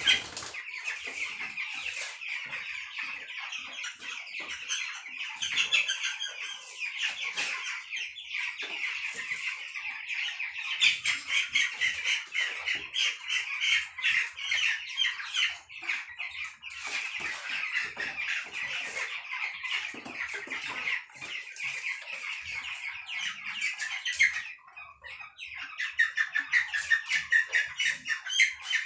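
A flock of young broiler chickens peeping continuously in a dense, high chorus, with occasional wing flapping and knocks as birds are caught and handled.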